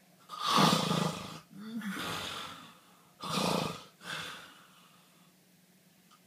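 A person snoring loudly: two harsh snores about three seconds apart, each a breath in two rough parts.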